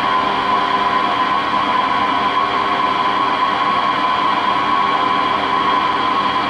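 Bridgeport EZ Path SD lathe's 10 HP direct-drive spindle running at a constant speed: a steady machine whine over a noisy hum, unchanging throughout.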